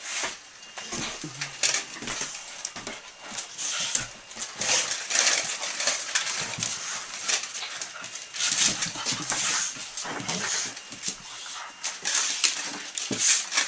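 A pit bull and a puppy play-wrestling: an irregular run of scuffling and scrabbling on a wooden floor and dog bed, mixed with short whimpering and growly dog noises.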